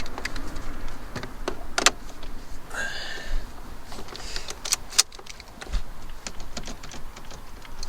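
Hand work on car parts around the steering column and ignition: scattered clicks, knocks and rattles of plastic and metal pieces being moved and fitted, with a brief squeak about three seconds in.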